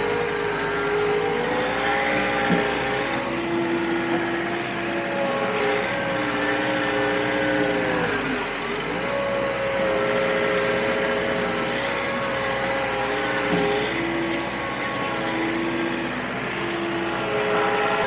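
John Deere 4052R compact tractor's three-cylinder diesel engine working under load as it pushes asphalt millings with a box blade. Its pitch keeps rising and falling as the load changes, with a deep dip a little before halfway and another near the end.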